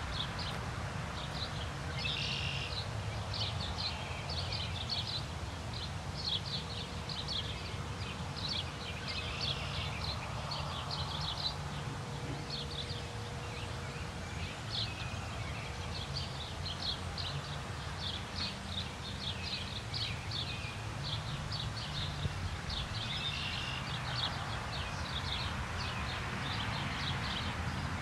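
Birds chirping and singing without pause, many short high notes in quick succession, over a steady low rumble.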